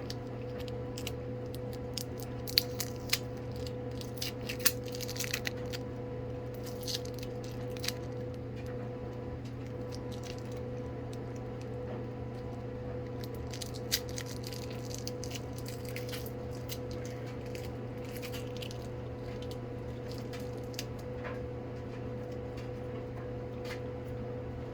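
Packaging on a shipping box being handled and opened: scattered crinkles, clicks and tearing sounds, mostly in the first third, with one more about halfway. A steady hum runs underneath.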